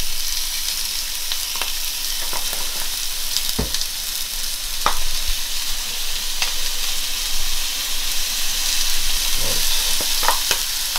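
Two chicken breasts sizzling in a frying pan on a stovetop burner at medium heat: a steady hiss with scattered small clicks and pops.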